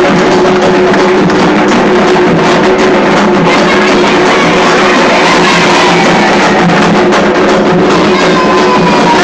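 Loud, continuous drum-led music: dense, rapid drum strokes over a few steady held tones, with gliding pitched lines appearing near the end.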